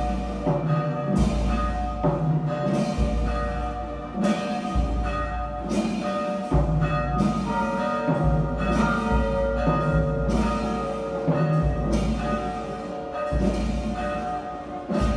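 Church bells tolling for the dead, struck about every second and a half to two seconds. Each deep, heavy stroke rings on into the next.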